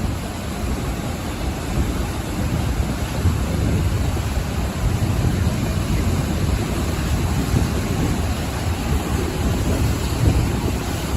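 Ocean waves breaking and washing onto the shore: a continuous rushing wash, heaviest in the deep end, that swells and eases gently.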